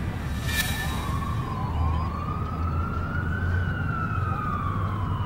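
A distant siren wailing, its pitch rising slowly and then falling, over a steady low rumble like street traffic.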